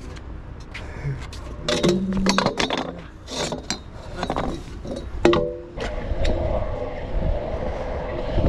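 Metal stunt scooter clinking and knocking on concrete as it is handled, a string of sharp clicks. From about six seconds in, a low rumble of its wheels rolling over the concrete.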